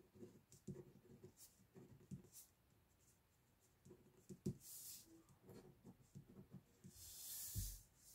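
Pen scratching faintly on paper in short sketching strokes. Near the end there is a longer brushing rustle across the paper with a soft thump.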